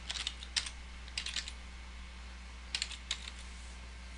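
Typing on a computer keyboard: three short runs of quick keystrokes with pauses between them, over a steady low hum.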